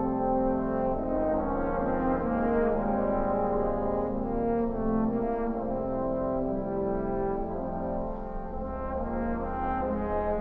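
Trombone choir playing slow, sustained chords, the low bass notes shifting every second or two beneath held upper parts.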